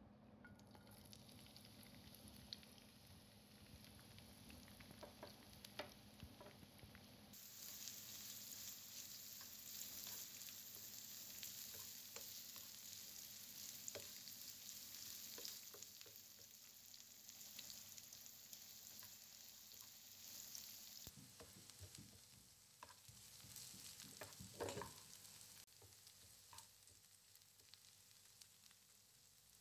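Chopped onions sizzling in hot oil in a frying pan as they are sautéed, stirred with a spatula that scrapes the pan now and then. The sizzle grows louder about seven seconds in and dies down after about twenty, with one louder scrape near the end.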